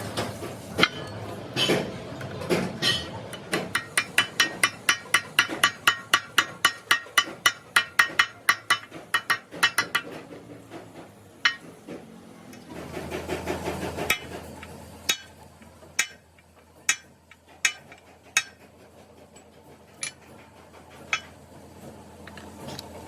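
Hammer blows on metal, each with a ringing note: a fast, even run of about three to four strikes a second, then slower single blows about a second apart.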